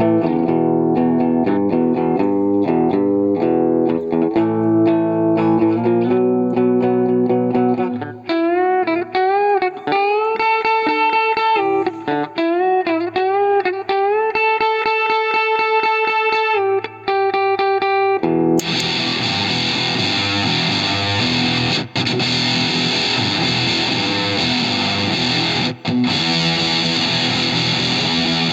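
Electric guitar played through a reproduction Fender Blender octave-fuzz pedal: fuzzy chords and riffs, then single sustained lead notes with string bends. About two-thirds of the way in the tone turns much thicker and brighter as chords ring out, broken by two short stops.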